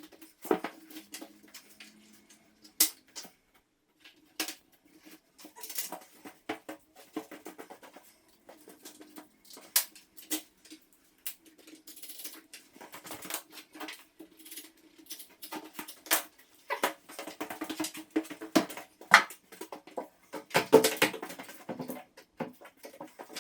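Irregular clicks, taps and knocks of door-frame parts and their clips being handled and pressed together, over a faint steady hum.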